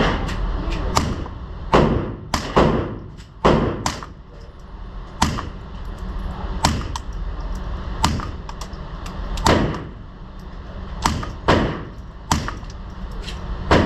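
Suppressed Sig P322 .22 LR pistol firing Federal Auto Match, one shot at a time: about a dozen sharp, short cracks at an unhurried, uneven pace, some of them in quick pairs.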